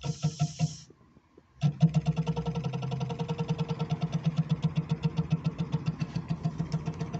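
Fiat Punto Evo heater blower motor running on the bench with a rapid rhythmic knock. It cuts out about a second in, starts again half a second later and runs on steadily. The motor has a lot of play on its axle, and its brushes are worn down to the copper, which is why it failed.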